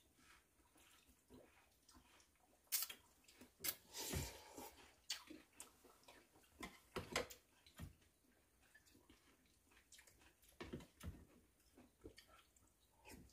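Faint eating sounds: spoons and chopsticks clicking against bowls, with slurping and chewing of pumpkin porridge with fruit. Scattered short clicks, a few louder ones about three to five seconds in.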